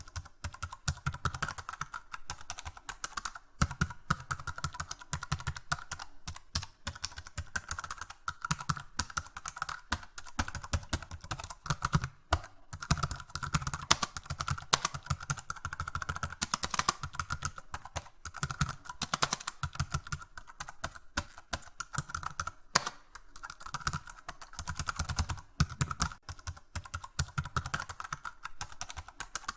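Computer keyboard being typed on: fast, irregular key clicks, several a second, with a few short pauses between bursts.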